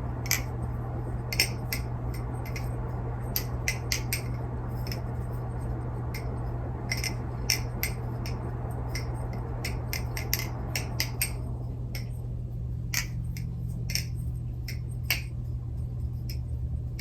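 NRB Vortex balisong being flipped: its handles clack against the blade in sharp, irregular clicks, a few a second, a sound the flipper calls amazing for the price. A steady low hum lies underneath.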